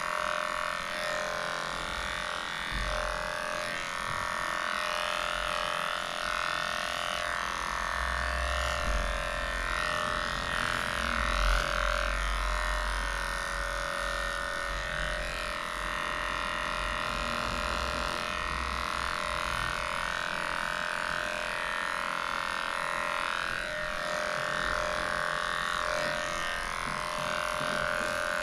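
Cordless electric dog clipper running steadily, its motor humming at an even pitch as it shaves matted hair off a dog's leg. Some low rumbling comes in around the middle.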